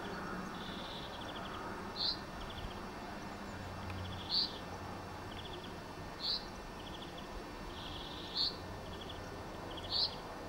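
Small birds calling: a short sharp chirp repeated about every two seconds, with faint quick trills between, over a steady low background rumble.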